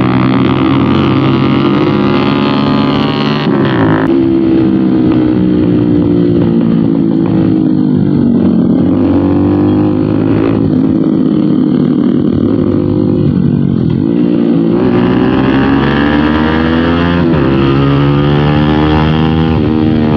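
Bajaj Pulsar NS200's single-cylinder engine through an aftermarket slip-on exhaust, heard from the rider's seat while riding. The revs drop and climb several times with the throttle, picking up strongly past the middle.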